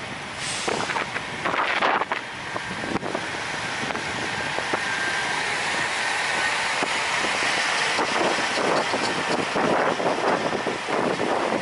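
Wind gusting and buffeting the camera microphone, over a steady rush of vehicle noise.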